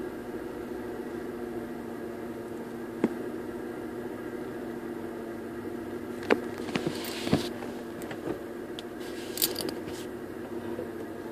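Car engine idling steadily while the clutch pedal is worked, with several sharp clicks and a brief rasping noise about two-thirds of the way through.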